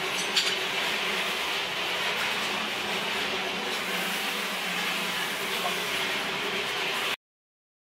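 Steady mechanical hiss and hum with one sharp click about half a second in; it cuts off suddenly near the end.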